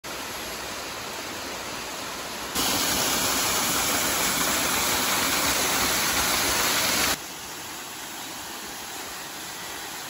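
Small waterfall splashing onto rocks: a steady rush of water that is clearly louder from about two and a half seconds in to about seven seconds in, where it is heard up close.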